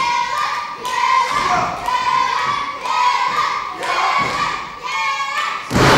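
Wrestler slammed onto the wrestling ring mat with a loud thud near the end, coming down from a vertical suplex. Spectators shout and chant throughout.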